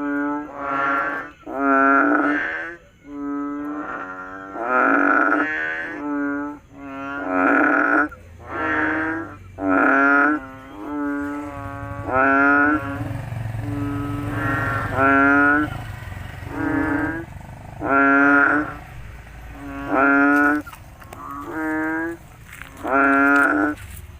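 Frogs croaking over and over, about one call a second, each a loud pitched croak about half a second long that rises slightly at its end.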